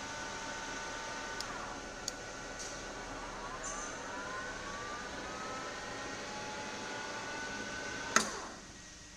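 Schaublin 125 C lathe running with a steady whine from its spindle drive; a second or two in the pitch drops, then glides back up over about two seconds as the spindle speed changes. Near the end a sharp click comes and the whine stops as the machine is switched off.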